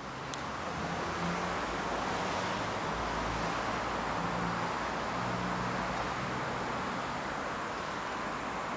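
Steady urban traffic noise, a constant rush of distant road traffic, with a faint low engine hum that comes and goes.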